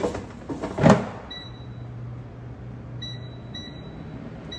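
Air fryer basket pushed home into the unit with a clunk about a second in, then the air fryer's fan starts with a low steady hum while its touch panel gives several short high beeps as the time is set.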